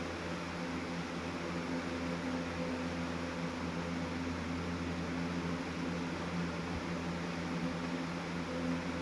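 Electric box fan running steadily: an even rush of moving air with a low, constant motor hum underneath.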